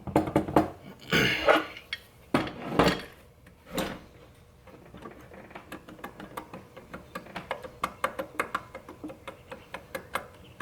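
Small metal steering column parts being handled and clinking, with a few louder clattering hits in the first few seconds, then a long run of light, quick clicks.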